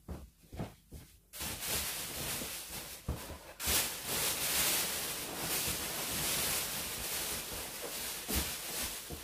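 Electric balloon inflator running, a steady rush of air that starts abruptly and steps up louder a couple of seconds later, as latex balloons are blown up.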